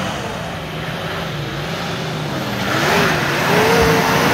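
Toyota Land Cruiser SUV driving through deep mud, its engine note rising and falling as the throttle is worked. From about three seconds in the engine revs higher and grows louder, with a rush of tyre and mud noise, as the vehicle comes close.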